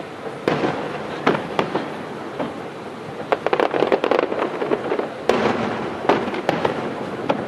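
Aerial firework shells bursting: separate sharp bangs every second or so, with a run of rapid crackling about three and a half seconds in.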